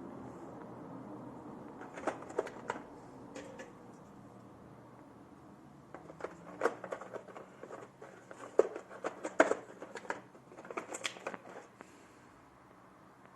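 Scattered sharp clicks and taps of small hard objects being handled, coming in clusters about two seconds in, again from about six to nine and a half seconds, and around eleven seconds.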